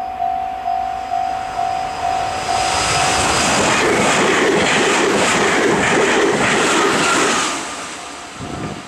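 Japanese level-crossing alarm ringing its electronic bell about twice a second. About three seconds in, an electric train passes over the crossing with loud rushing and rhythmic wheel clatter, which fades away after about seven seconds while the bell keeps ringing.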